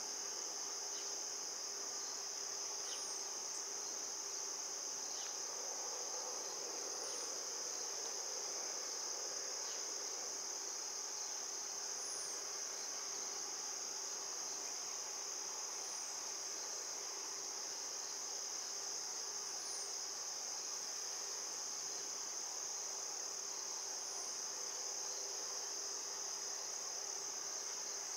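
Steady outdoor insect chorus: a continuous high, even trill that never breaks. A short high chirp repeats about every four seconds over it.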